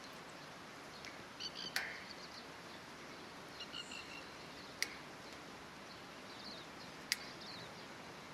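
Three sharp clicks of steel fencing wire being wrapped in tight loops around the back of a wire strainer, over faint outdoor background with small birds chirping.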